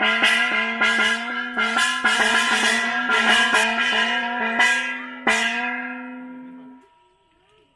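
A brass hand bell (pooja ghanta) is rung rapidly, about four strokes a second, with a bright, sustained ring. A last stroke a little after five seconds is left to ring out, and the sound stops abruptly about seven seconds in.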